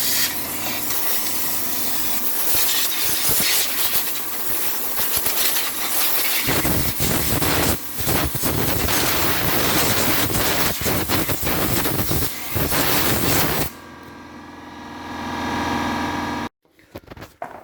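Compressed-air blow gun hissing loudly as it blasts grit out from between a rear brake disc and its dust shield, fuller-sounding from about halfway in. It stops about 14 seconds in, followed by a fainter sound that swells briefly and cuts off.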